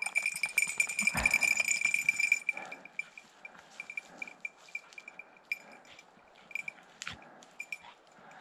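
Small bell on an English setter's collar, ringing steadily for the first couple of seconds and then jingling on and off as the dog moves about searching. There is crackling rustle of brush and a single thump about a second in.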